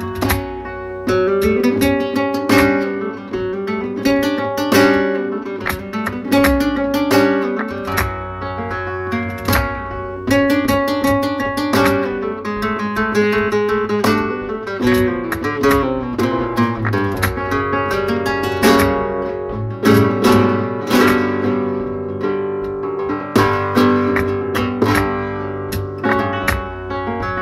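Solo nylon-string flamenco guitar playing a falseta in soleá: melodic single-note lines broken by frequent sharp strummed chords.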